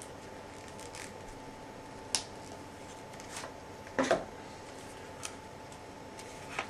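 Hands handling plastic e-reader packaging: a few sharp plastic clicks and clacks, the loudest a double clack about four seconds in, over a faint steady hum.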